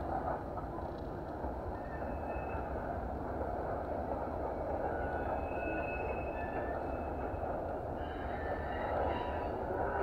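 EMD SD75I diesel locomotive with its 16-cylinder two-stroke engine, moving a string of freight cars through a yard, heard from a distance as a steady rumble of engine and rolling wheels. Faint thin high tones come and go over it.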